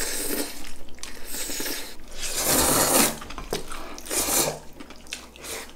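Cold mixed noodles being slurped and chewed with chopsticks from a bowl: several wet slurps, the longest and loudest about two and a half seconds in.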